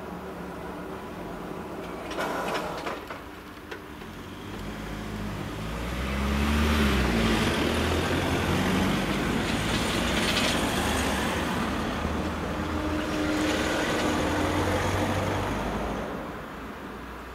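Cars driving past over the level crossing, engine and tyre noise swelling from about five seconds in, with an engine note rising and falling as a car goes by, and a second vehicle following before it fades near the end. A brief rattle about two seconds in.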